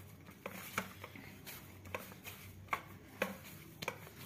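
Stiff maida dough being kneaded by hand in a steel plate: soft slapping and pressing sounds about every half second, over a low steady hum.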